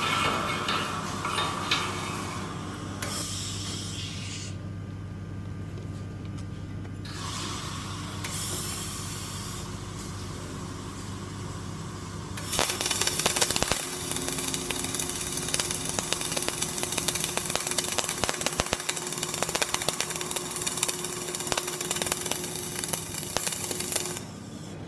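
Flux-cored arc welding: a steady crackling, spitting arc that strikes about halfway through and cuts off suddenly near the end. Before it come two shorter stretches of hiss.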